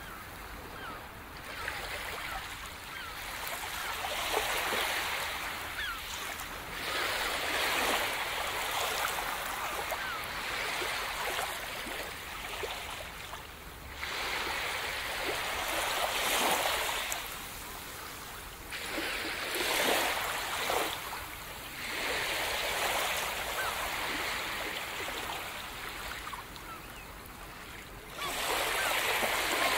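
Gentle surf: small waves breaking and washing up a sandy beach, the wash swelling and falling away every few seconds.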